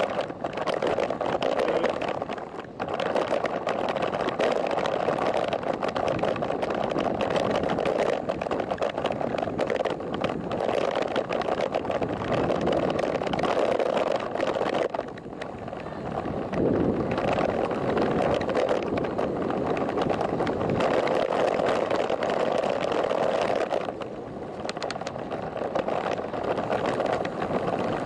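Wind and road noise on an action camera riding on a moving bicycle at about 20 km/h: a steady rushing hiss that drops away briefly three times.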